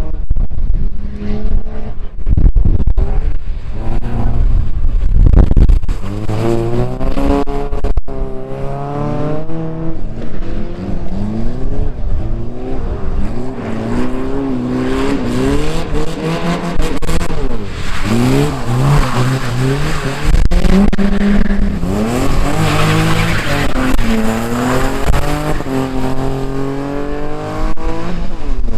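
Several race car engines revving up and down in pitch, overlapping as the cars accelerate and lift off around the track, with tyres skidding and squealing.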